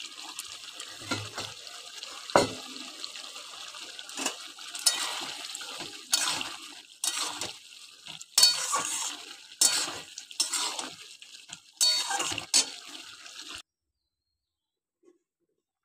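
A spatula stirring a thick vegetable curry in a metal wok, about a dozen clatters and scrapes against the pan over a steady hiss. The sound cuts off suddenly near the end.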